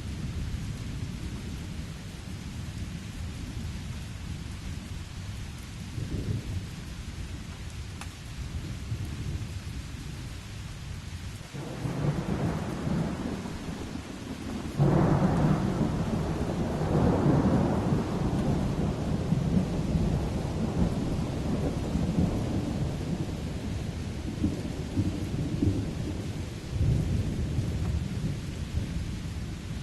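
Steady rain with rolling thunder. About halfway through, the thunder swells into a loud, deep peal that slowly rumbles away, and it swells again briefly near the end.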